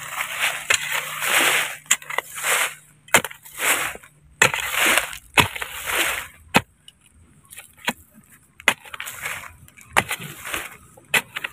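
A long-handled hoe chopping into dry soil, with a sharp strike about every second and a quarter, each followed by the scrape and crumble of loosened dirt. There is a short pause a little past the middle before the strikes go on.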